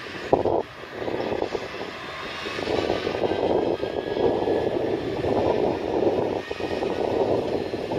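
Heavy diesel farm machinery running steadily at a silage harvest, a continuous engine drone, with a short thump about half a second in.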